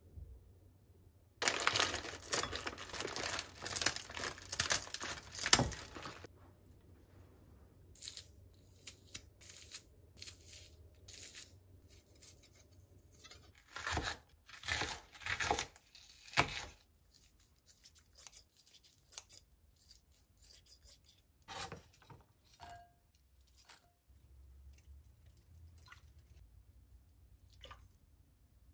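Plastic packaging tearing and crinkling for several seconds near the start, then a kitchen knife slicing an onion on a plastic cutting board, with a run of loud knife knocks on the board about halfway through and a few faint clicks near the end.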